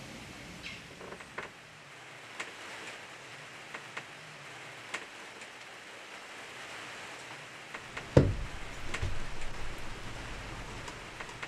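Light rain pattering with scattered sharp drips. About eight seconds in come two low thumps a second apart, followed by a low rumble.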